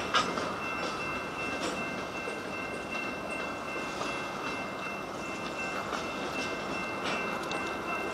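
Freight train cars rolling past: the steady rumble of steel wheels on rail with occasional clacks over the joints, a sharp clank right at the start, and a thin, steady high-pitched wheel squeal that sets in just after it and holds throughout.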